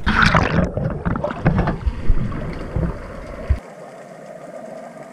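Wind buffeting the microphone and choppy water slapping against a small aluminium boat's hull, with scattered knocks. About three and a half seconds in the low rumble cuts off abruptly and only a quieter hiss remains.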